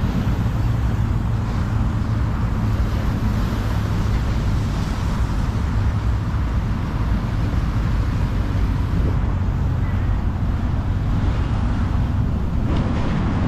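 Steady outdoor background noise with a constant low rumble.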